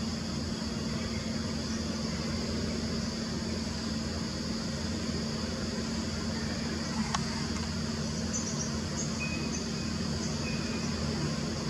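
Steady outdoor background: a low hum under hiss, with a high, even insect drone. A single sharp click comes about seven seconds in, and a few short, faint chirps follow.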